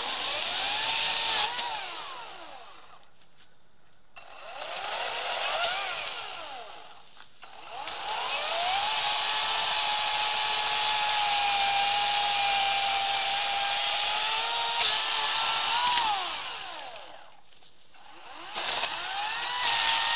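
EGO 56V battery chainsaw, brushless electric motor driving an 18-inch bar and chain, whining up and down in short bursts. In the middle it runs for about eight seconds cutting into a fallen tree trunk, its pitch holding steady under load, then winds down. One more short burst comes near the end.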